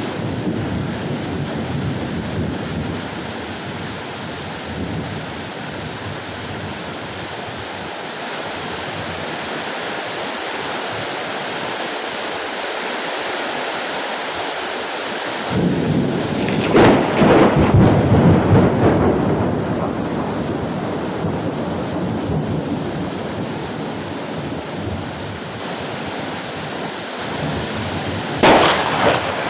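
Heavy rain falling steadily in a thunderstorm. About halfway through, thunder breaks in suddenly and rumbles loudly for several seconds, and near the end there is a short sharp crack.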